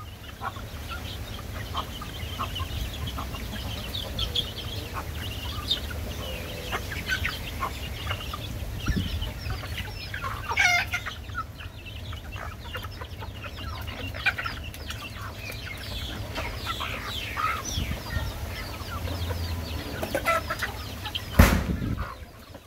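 A flock of chickens clucking and calling in short, scattered notes, with one louder call that falls in pitch about ten seconds in and a single sharp knock near the end.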